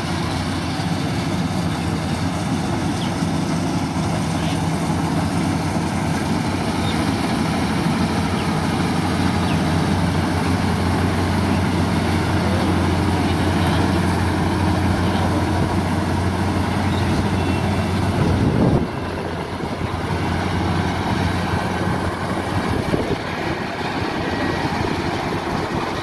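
Sumo World rice combine harvester's diesel engine running steadily as the machine cuts and threshes ripe rice. About two-thirds of the way through, the sound changes abruptly and the low hum drops away.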